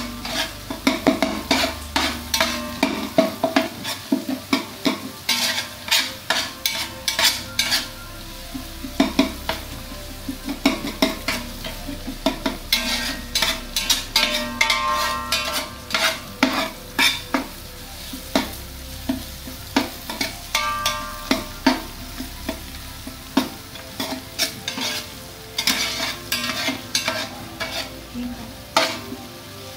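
Flat metal spatula scraping and clinking against the inside of a large aluminium pot, stirring chopped onions, chillies and whole spices frying in oil. Irregular strokes, about one or two a second, over a steady sizzle.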